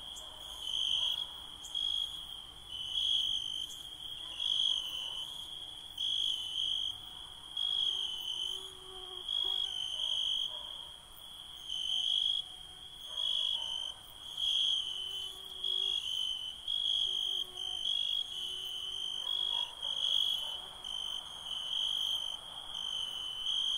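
Crickets chirping in a steady high trill that swells and fades about once a second, with fainter, higher insect calls over it.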